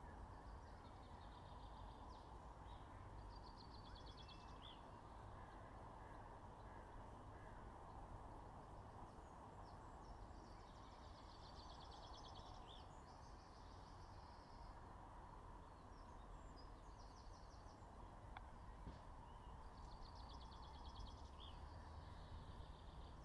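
Faint ambience of small songbirds repeating short, high trilled phrases every few seconds over a low, steady rumble.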